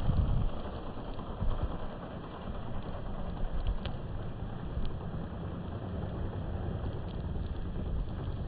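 Wind buffeting the microphone in a snowstorm: an uneven low rumble that swells and falls.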